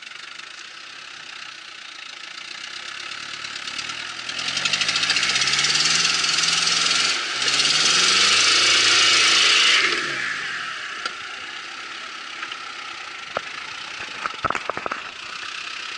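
Toyota Land Cruiser 70-series 4x4's engine revving hard twice as it pushes through deep mud, its pitch rising each time, with a loud hiss of spinning tyres and flung mud over the revs. It then drops back to a lower steady run, with a few sharp clicks near the end.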